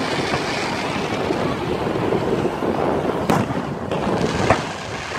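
Aerial firework shells bursting: two sharp bangs a little over a second apart, past the middle, over a steady background rush.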